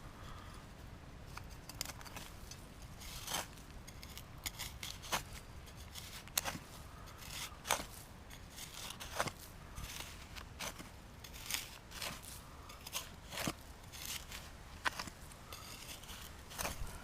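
Footsteps through dry brush: irregular sharp snaps and crackles about once a second.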